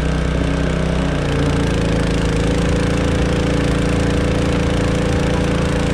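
Small gasoline engine of a portable dewatering pump running, pumping the water out of a swamped boat. It shifts speed about a second in and then runs steadily.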